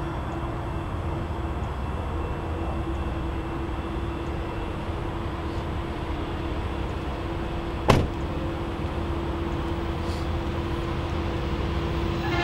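Steady low rumble of an approaching train at a grade crossing, with one sharp click about eight seconds in. The locomotive horn trails off at the start and sounds again at the very end.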